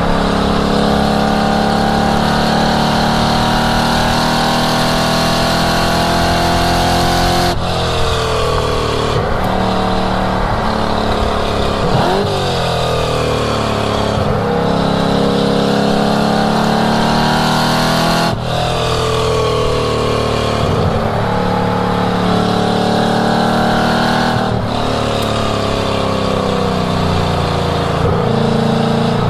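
1967 Ford Mustang's engine run hard at high revs on a race track, its note climbing steadily, breaking off sharply and changing pitch about 8, 18 and 25 seconds in, with a brief dip and recovery around 12 seconds.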